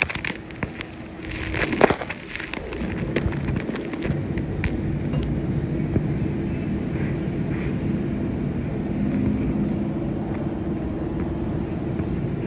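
Steady low engine rumble with a faint constant hum, and a short cluster of knocks and clicks about two seconds in.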